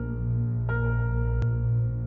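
Ambient background music: held synth-like tones over a deep bass, with a new chord struck about every one and a half seconds. A single sharp click about halfway through.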